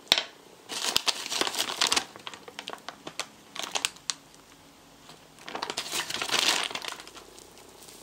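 Soft white resin craft clay being squeezed and folded by hand, giving sticky, crackly crinkling in three bursts, after a single sharp click just at the start.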